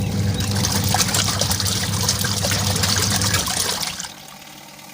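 Semi-automatic top-loading washing machine's wash tub agitating: the motor hums steadily while the pulsator churns the clothes and water, sloshing and splashing. About three and a half seconds in the motor stops and the splashing dies away, the pause before the pulsator turns the other way.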